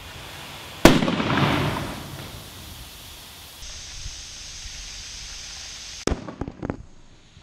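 A duct-taped basketball, overfilled with compressed air, bursts with a loud bang about a second in, and the sound dies away over about a second. Near the end a second, quieter bang comes, followed by a few smaller knocks.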